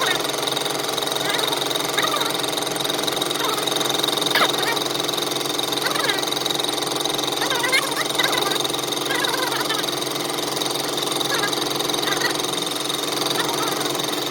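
Workshop machinery running steadily with a constant hum, with a sharp click about four and a half seconds in.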